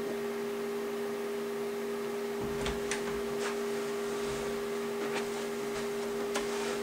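Steady two-tone electrical hum, with a few faint knocks and footsteps scattered through it as someone moves across the room.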